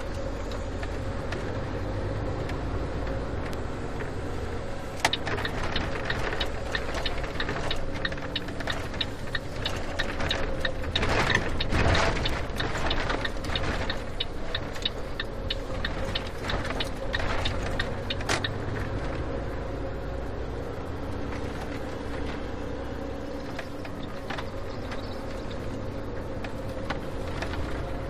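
Car driving: steady engine and road rumble, with a run of quick, evenly spaced clicks from about five to eighteen seconds in.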